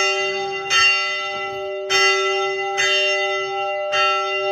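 Church tower bell swung on its main rope, struck five times roughly a second apart, each stroke ringing on over the long hum of the one before.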